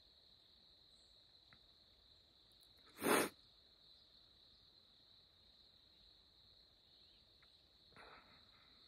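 Steady high-pitched insect trill, like crickets, running on under a pause, with one short, sharp intake of breath through the nose about three seconds in.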